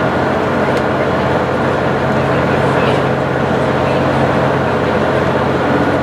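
Cabin noise of a JR Central HC85 series hybrid diesel railcar running at speed: a steady rumble of wheels on rail with a low hum underneath, heard inside the passenger car.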